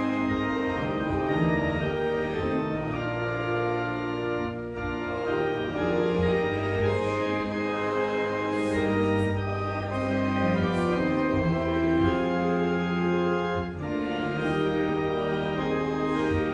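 Church organ playing music in held chords that change every second or two.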